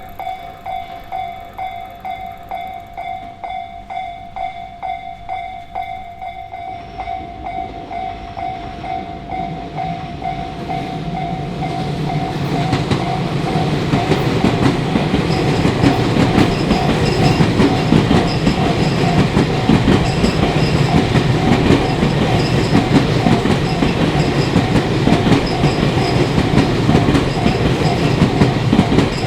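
Japanese level-crossing warning bell ringing in a steady, even ding-ding rhythm, then a Tobu Tojo Line electric train approaches from about seven seconds in and passes loudly over the crossing, its wheels clattering on the rails, with the bell still ringing beneath it.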